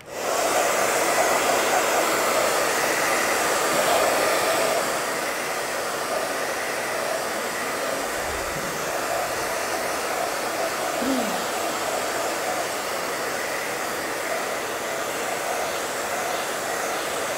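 Handheld hair dryer running steadily, blowing on a small painted craft box to dry it. It is a little louder for the first five seconds or so.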